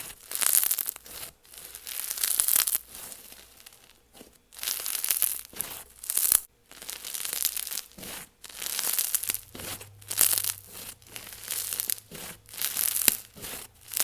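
Clear-glue snow fizz slime being pulled and squished by hand, crackling and fizzing in repeated bursts about once a second.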